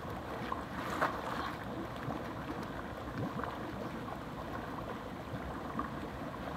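Hot tub jets churning the water: a steady bubbling rush, with a faint steady hum under it.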